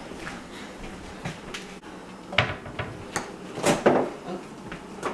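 Kitchen handling sounds: a refrigerator door and containers on the counter, giving several sharp separate knocks and clunks. The loudest come in a cluster about two-thirds of the way through.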